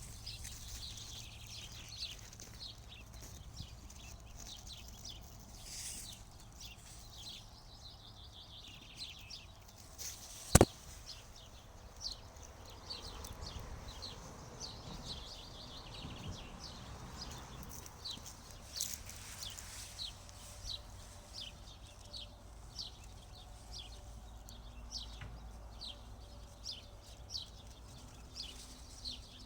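Small birds chirping, short high chirps repeated one or two a second, with one sharp click about ten seconds in and a low steady hum underneath.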